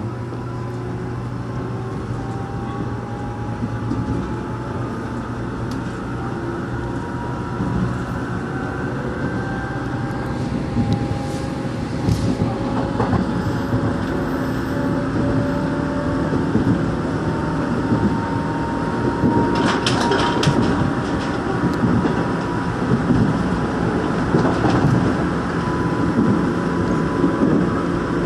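Rheostat-controlled Korail 1000 series electric train accelerating from a station, heard from inside the car: its traction motors give a whine of several tones rising in pitch over a running rumble that grows louder. The wheels clack sharply over rail joints or points, twice in the middle and most strongly about twenty seconds in.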